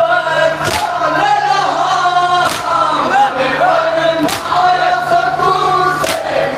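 Group of men chanting a nauha, a Shia lament, in unison, with loud collective chest-beating (matam) striking in time about every two seconds, four strikes in all.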